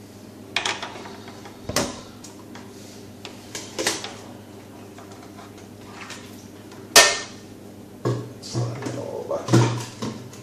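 Hard plastic parts of a protein skimmer (pump, clear tube and body) knocking and clicking against each other as they are handled and fitted back together. The loudest is a sharp knock about seven seconds in, followed by a cluster of clatters.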